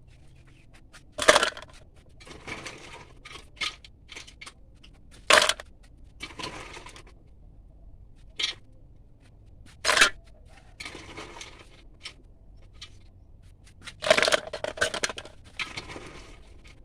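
Irregular sharp knocks and clinks of kitchen utensils, about half a dozen, with scraping sounds between them.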